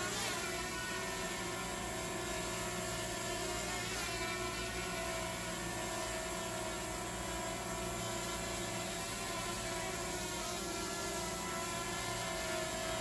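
DJI Mavic Mini quadcopter hovering on freshly replaced propellers: a steady whir of its four motors and props. Its pitch wavers briefly near the start and again about four seconds in as the drone is pushed aside and the motors correct to hold position.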